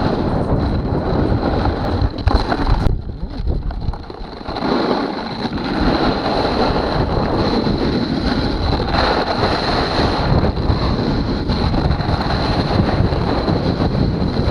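Strong wind rushing over the microphone of a snowboarder's camera during a fast run down an icy slope, mixed with the board scraping the ice. It eases briefly about three seconds in, then picks up again.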